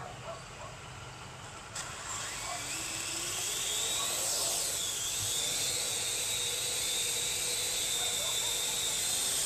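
Parrot AR.Drone quadcopter's rotors starting with a click about two seconds in, then spinning up into a high whine as it lifts off. The pitch wavers briefly before settling into a steady hover whine.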